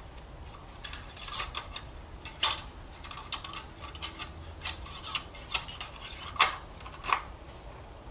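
Engine oil dipstick being pushed down into its tube and pulled back out, giving about a dozen light, sharp clicks and scrapes spread over several seconds. The loudest click comes about two and a half seconds in.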